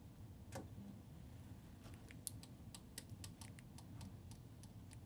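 Faint, irregular light clicks, about a dozen in quick succession over the last three seconds, over quiet room tone.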